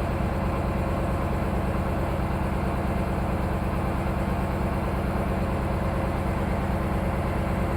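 Engine idling steadily, with an even low pulsing.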